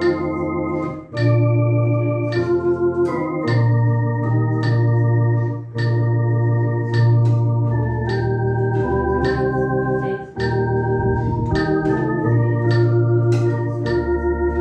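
Electronic organ playing a hymn chorus in sustained chords over a bass line, the chords changing every second or so, with steady metronome clicks keeping the beat.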